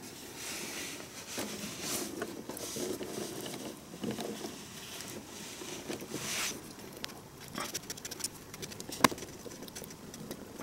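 Hands fitting ring terminals onto the posts of a Bosch ignition coil: wires rustling and small clicks of terminals and connectors, with one sharp click about nine seconds in.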